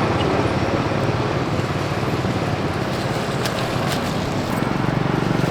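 A motor vehicle engine running steadily, with a low, even hum.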